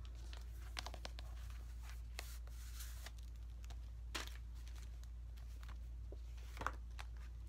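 Faint rustling and scattered light taps of a music album's cardboard case and printed paper inserts being handled, with a couple of sharper taps about four seconds in and near the end, over a steady low hum.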